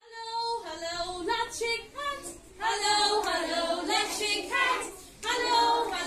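A group of young children's voices singing a song together in unison, high-pitched, with short breaks between phrases.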